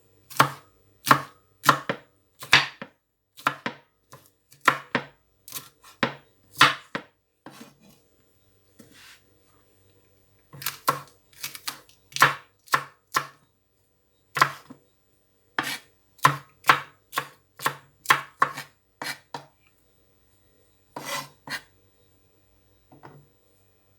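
Kitchen knife chopping a bell pepper on a cutting board: sharp knocks about one to two a second, in two runs separated by a short pause, then a few last cuts near the end.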